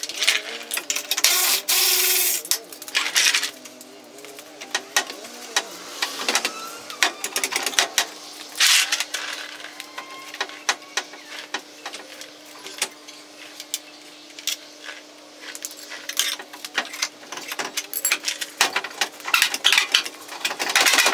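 Cordless electric ratchet run in several short bursts, each about a second long, while removing the rear bumper's bolts. Many clicks and clanks of tools and metal parts come between the bursts, over a faint steady hum.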